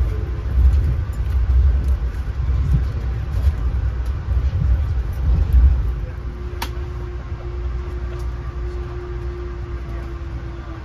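Amtrak Northeast Regional train running, heard from inside the coach: a steady low rumble that drops in level about six seconds in, after which a steady hum comes through and there is a single sharp click.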